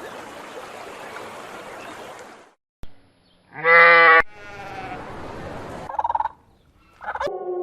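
A sheep bleating once, a short loud call about halfway through, over a steady background hiss; fainter calls follow near the end.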